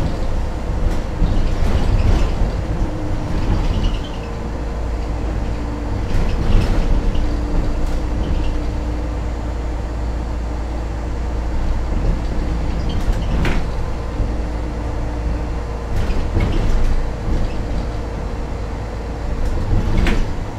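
MAN NL 273 Lion's City city bus with a diesel engine and Voith automatic gearbox, heard from inside: a steady low engine and driveline rumble with a humming tone. A few sharp rattles or knocks come through, the loudest about 13 seconds in and just before the end.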